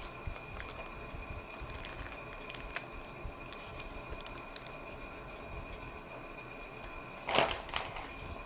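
Close-miked chewing of a lettuce-wrapped sandwich: small wet mouth clicks, then a louder crunchy bite about seven seconds in. A faint steady high whine runs underneath.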